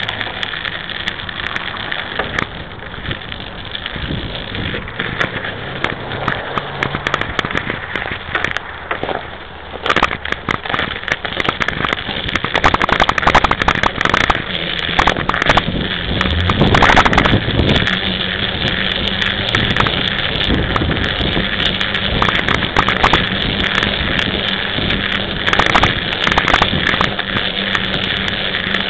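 Mountain bike riding over snow and slush: the knobby tyres crunch and hiss, with a dense crackle of clicks and rattles that is heaviest partway through, while the bike crosses deeper snow.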